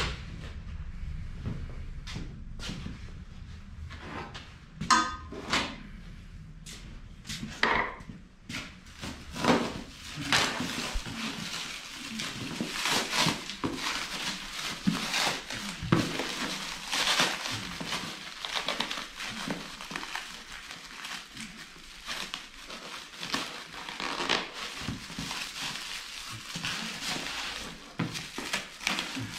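Packaging and parts being handled: scattered knocks and clicks, then from about ten seconds in a steady crinkling and rustling of wrapping with many small clicks.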